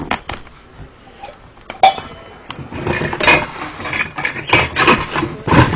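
A cooking pot handled among other pots and pans: a few separate sharp clanks, then about three seconds of clattering metal.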